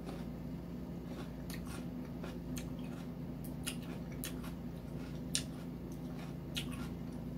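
A person eating: chewing sounds with scattered small sharp clicks from the mouth and hands, one sharper click about five seconds in, over a steady low hum.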